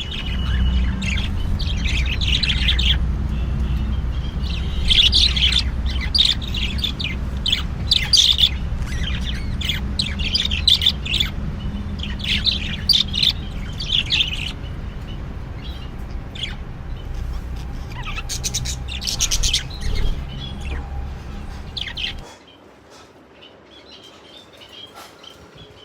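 Small birds chirping in quick repeated clusters, over a steady low rumble that cuts off suddenly about 22 seconds in, leaving faint chirps.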